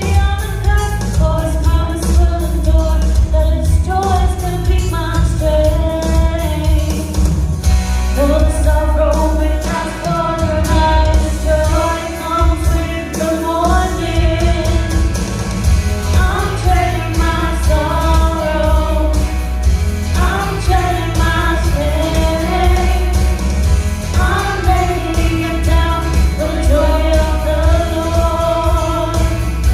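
Worship song: a sung melody over instrumental accompaniment with a strong bass.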